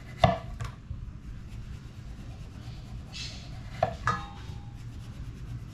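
Kitchen knife peeling a papaya stood on end: a few sharp knocks and a short scraping stroke of the blade through the peel, and a clink with a brief ringing near four seconds in.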